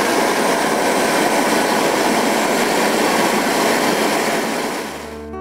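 Homemade jet built from an old turbocharger and fed compressed air and gas, running with a loud, steady rush of burning gas and air. Its inefficient combustion chamber leaves most of the fuel burning behind the exhaust turbine. Near the end the rush fades and acoustic guitar music comes in.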